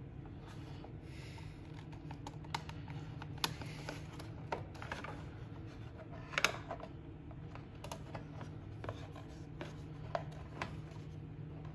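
Scattered clicks, taps and light scraping of hard plastic parts being handled and pressed into place: the engine's key-switch housing with its safety key being fitted. The sharpest click comes about six and a half seconds in, over a steady low hum.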